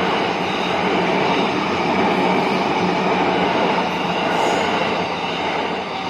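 Yamanote Line electric train passing over a level crossing: steady rumble of wheels on rail, fading away near the end.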